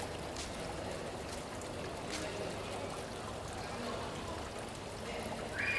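Hospital ambience: a steady wash of background noise over a low hum, with indistinct distant voices and a few faint clicks. Near the end a higher-pitched tone begins.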